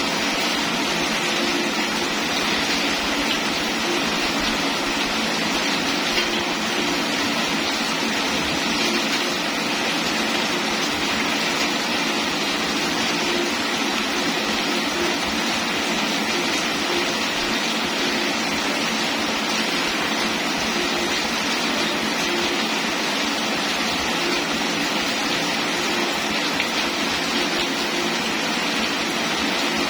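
Steady rainfall, an even hiss that holds the same level throughout.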